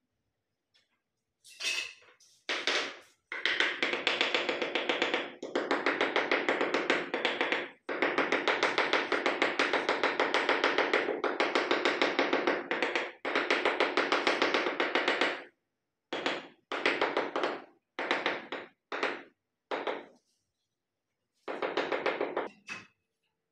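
Narrow tile skirting strips being tapped into their mortar bed: long runs of fast, even taps, breaking up into shorter bursts in the second half.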